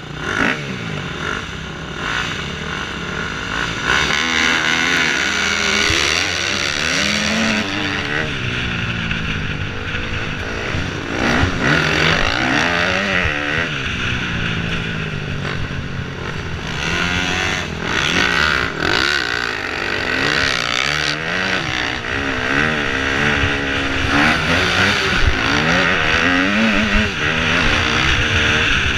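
Dirt bike engine running hard, its note rising and falling repeatedly as the rider throttles on and off along a motocross track.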